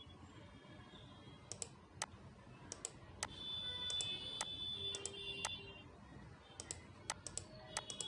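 Faint, scattered clicks of a computer mouse, about ten of them at uneven intervals.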